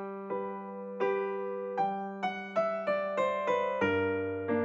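Background music: a keyboard, piano-like, playing a melody of separate notes over a held bass note that steps down near the end.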